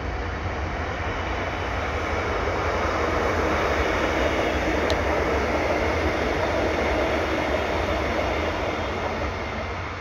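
A passenger train passing, a steady rushing rumble that swells to its loudest about halfway through and fades near the end.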